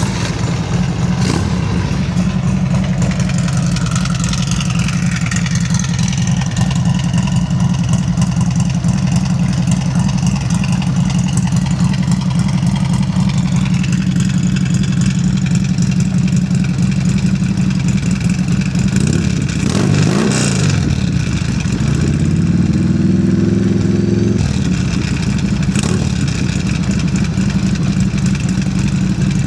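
Harley-Davidson Sportster's air-cooled Evolution V-twin running through a new Cobra El Diablo 2-into-1 exhaust, idling with a loud, uneven low rumble, the Evo chop. About two-thirds of the way through it is blipped and then revved up for a couple of seconds before dropping back to idle.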